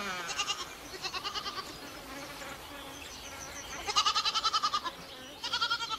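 Goat bleating: about four quavering bleats, the longest and loudest about four seconds in.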